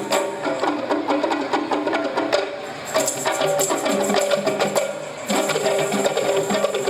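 Instrumental passage of qasidah music with no singing: a melody line played over busy hand percussion, with sharp wood-block-like strokes.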